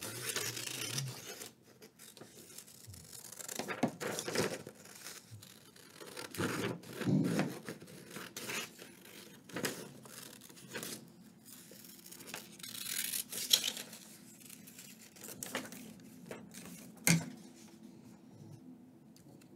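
Scissors cutting paper in irregular bursts of snips, with paper handled and rustling between cuts.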